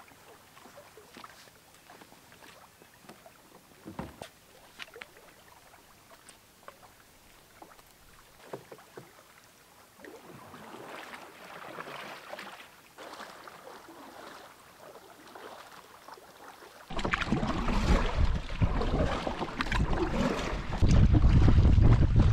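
Faint knocks and water splashing as a canoe is pushed off and paddled away from a rocky shore. About two-thirds of the way through, a sudden change to loud wind buffeting the microphone over choppy water slapping against the canoe's hull.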